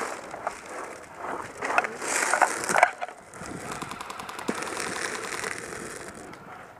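Close rustling and scraping of a player's gear and movement against cover, with a cluster of sharp knocks and clatters about two to three seconds in, then steadier rustling.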